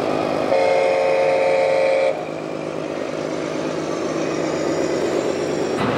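A truck horn sounds a steady multi-tone blast for about a second and a half, then cuts off suddenly, over a steady running engine.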